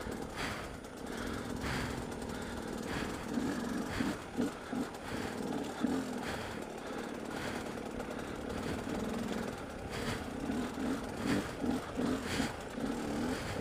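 Dirt bike engine running at low revs, its note pulsing up and down as the throttle is worked over rough ground, with scattered knocks and rattles from the bike jolting over the rocks.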